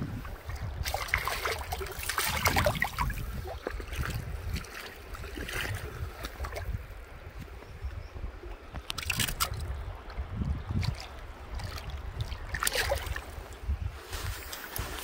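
Wind rumbling on the microphone over running river water, with irregular splashes and trickles of water every few seconds.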